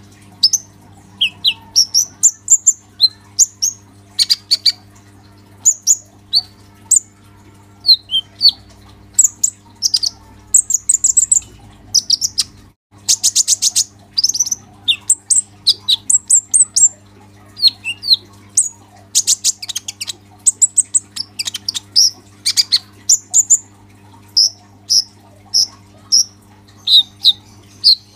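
A caged male kolibri ninja (purple-throated sunbird) singing without pause: rapid, thin, high chirps and short fast trills one after another, with a brief break a little before the middle.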